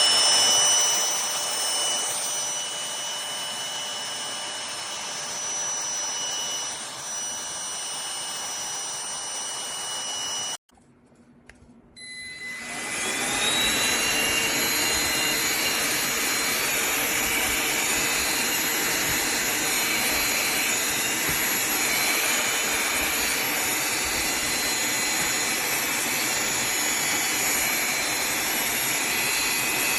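Cordless handheld vacuum cleaner motor running with a steady high whine. About ten seconds in it cuts off, and a second and a half later it starts again, its pitch rising as the motor spins up before it runs steadily.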